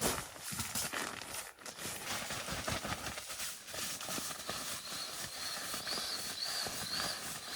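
Irregular rustling and knocks of camping bedding and gear being handled while a bed is set up in a tent, with a faint wavering high whine in the second half.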